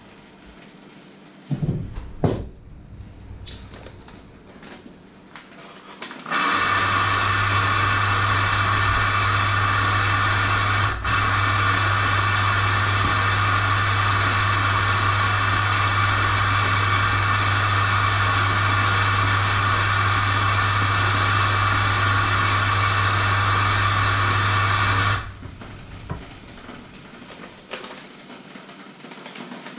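A small electric kitchen appliance motor starts abruptly about six seconds in, runs at a steady, loud pitch with a low mains hum for about nineteen seconds, and cuts off suddenly. A few light knocks and handling clatter come before and after it.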